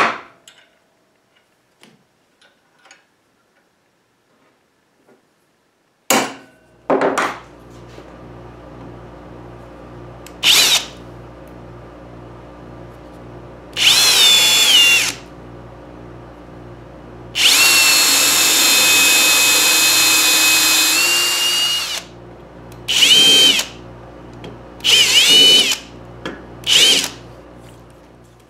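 Cordless drill running in several bursts, drilling screw holes into a metal motor-mount plate; the longest run lasts about four seconds. Before the drilling there are a couple of sharp knocks, and a low steady hum lies under it.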